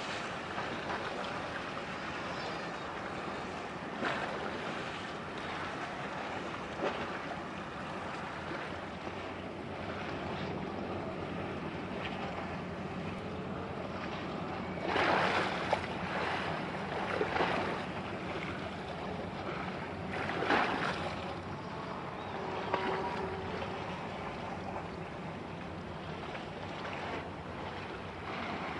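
Waterfront ambience: a steady rush of wind on the microphone and lapping water, with several louder swells of noise about halfway through.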